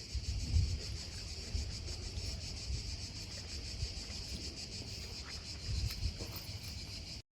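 H.Koenig HF340 compressor ice cream maker running as it churns, a steady high-pitched buzz with a fast even pulse over a low rumble.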